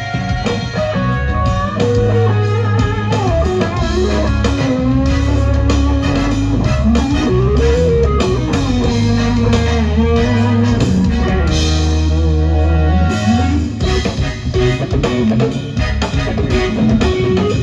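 Live rock band playing an instrumental break: a lead electric guitar solo with sliding, bending notes over bass guitar and drum kit.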